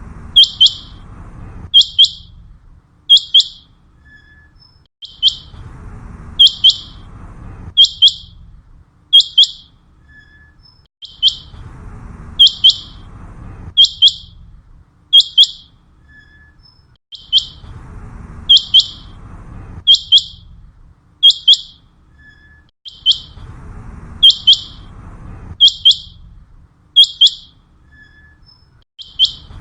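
Common quail calling: sharp, high whistled notes in phrases of about five or six, the same phrase coming round about every six seconds like a looped lure call, over a faint low background rumble.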